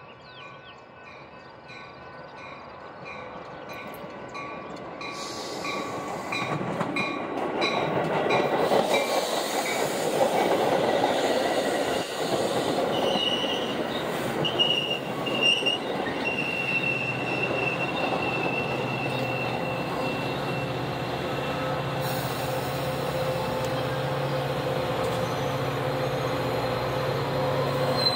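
Metra commuter train approaching and passing close by, bilevel passenger cars rolling past with a steady rumble and bursts of wheel squeal. A bell dings about twice a second as it comes in. Near the end the hum of the diesel locomotive pushing at the rear grows louder.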